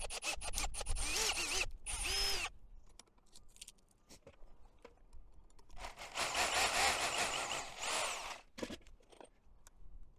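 Cordless drill running in short bursts, speeding up and slowing, as it widens a hole in a metal window fixing strap. About six seconds in, an SDS drill bores into the masonry behind the frame for about two seconds, followed by a few light clicks.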